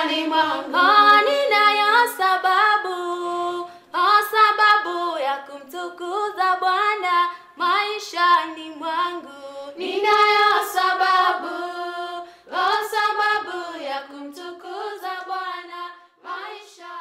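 Unaccompanied singing in high voices, a Swahili song of praise sung in phrases of a few seconds with brief pauses between them.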